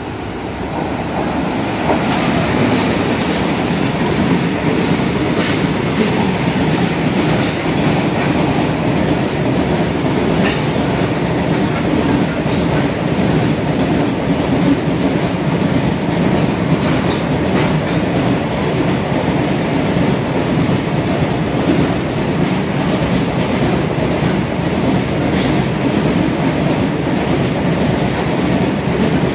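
Freight train of covered wagons hauled by a WAG-5 electric locomotive running through at speed without stopping. A loud, steady rumble of wheels on the rails builds over the first two seconds as the train reaches the platform, with occasional sharp clacks from the wheels.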